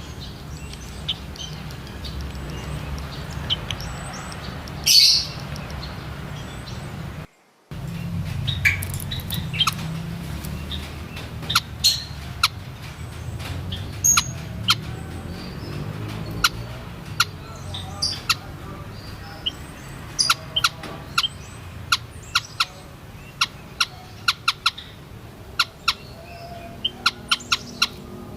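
White-headed munias calling: many short, high chirps, sparse at first, then coming thick and fast in quick runs, over a steady low rumble. The sound drops out for a moment about a quarter of the way in.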